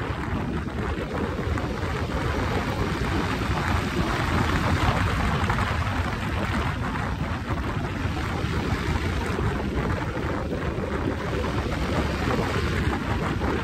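Wind buffeting the microphone of a motorcycle moving at road speed: a steady low rumble and rush, with the motorcycle's running and road noise underneath.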